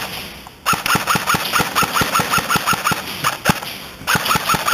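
Airsoft electric AK-74u (Lancer Tactical) firing full-auto. The gearbox and motor cycle in a fast, even rattle of shots. One long burst of about three seconds starts under a second in, and a second burst begins near the end.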